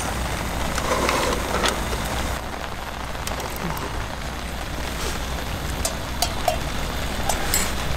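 Steady rain falling, a continuous hiss with scattered sharp ticks of drops, over a low steady hum.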